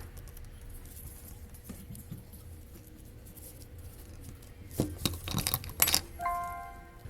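Small hard parts and tools clicking and rattling on a workbench, with a cluster of sharp clicks about five seconds in. A short steady beep follows near the end.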